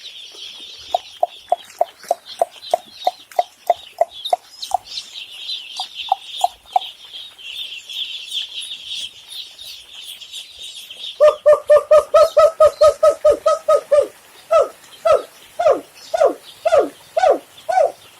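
Dense chorus of day-old broiler chicks peeping, a steady high chirping that stops abruptly about eleven seconds in. Over it come short lower clucks, about three a second. From about eleven seconds a louder, faster run of clucks follows, then slower calls falling in pitch near the end.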